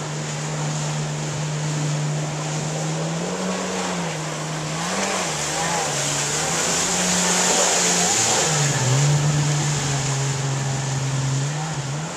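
Jet ski engines running on the water, their pitch rising and falling as the throttle is worked, with a rushing hiss that swells louder around the middle before easing off.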